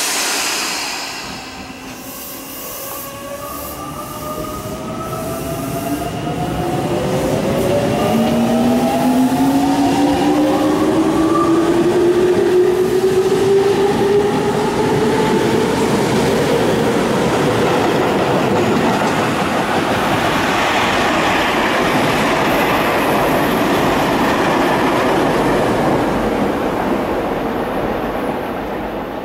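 Tobu 20050-series electric commuter train pulling away from the platform and accelerating past. A sudden loud sound comes at the very start. Then the inverter-driven traction motors whine in several tones that rise steadily in pitch, under growing wheel-on-rail running noise that fades near the end as the train draws away.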